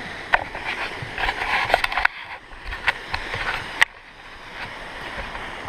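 Footsteps and knocks on the wooden plank deck of a cable suspension footbridge, irregular and clattering, easing off about four seconds in, over a steady rush of falling water from the waterfall below.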